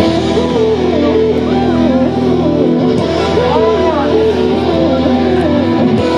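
Loud pop music with guitar over a steady bass line, starting suddenly at the beginning.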